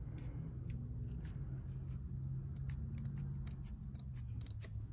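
Micrometer's ratchet thimble clicking as it is screwed closed on a telescoping bore gauge: a scatter of light, sharp clicks, most of them in the second half. The ratchet slips once the spindle meets the gauge, so each reading is taken at the same pressure.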